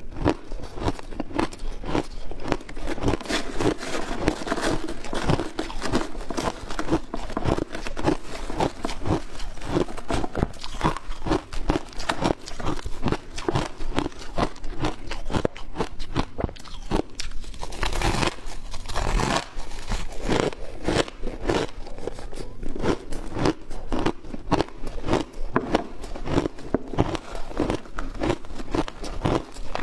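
Close-miked crunching and chewing of shaved ice: a dense, continuous run of sharp icy crunches, with one louder crunch about eighteen seconds in.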